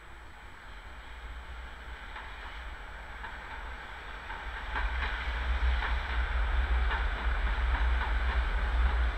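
Milan tram running past on street track. Its deep rumble grows as it approaches and is loudest as it passes close, with a few sharp clicks from the wheels on the rails.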